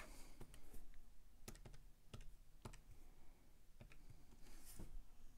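Calculator keys being pressed: a dozen or so faint, irregularly spaced clicks as a number is keyed in.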